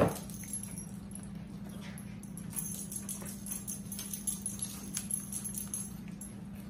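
A sharp knock at the start, then scattered faint crunches and clicks of people eating tortilla chips with cheese dip, over a steady low hum.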